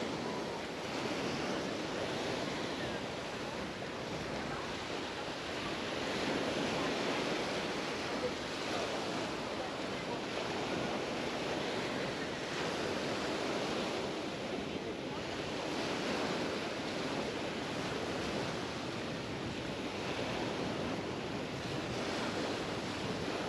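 Mediterranean surf washing onto the beach, the wash swelling and easing every few seconds.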